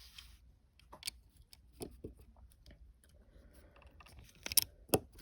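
Plastic Lego bricks clicking and clattering as they are handled and fitted, with two sharper clicks close together near the end.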